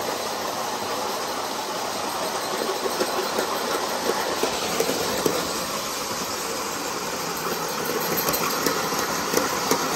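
Bachmann large-scale (G-scale) Percy model train running fast around a track loop, pulling trucks and coaches: a steady rolling noise with light clicks from the wheels on the track, louder near the end as it passes close.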